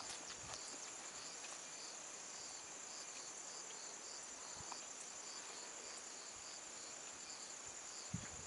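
Insects chirping in a grassy field: a steady high trill with a regular chirp about twice a second. A few soft footsteps in the grass near the end.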